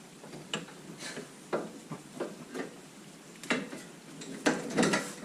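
Irregular metallic clinks and knocks of hand tools and metal car parts being handled, with the loudest cluster about three and a half to five seconds in.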